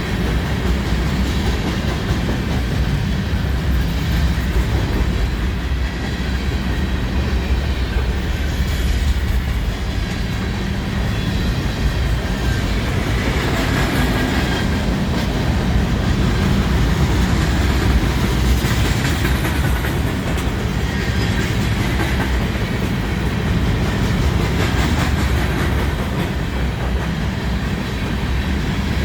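BNSF freight train cars rolling past, a steady rumble with the clack of wheels over rail joints.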